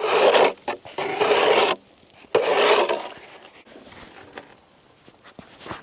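Snow shovel scraping snow across pond ice in three long rasping strokes, then only faint scuffs.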